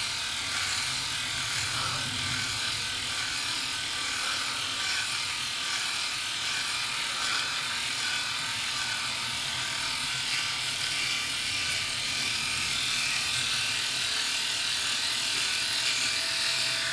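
SURKER KS-9390 rotary electric shaver running as it is moved over the cheek and upper lip, its rotating heads cutting short stubble with a steady whir.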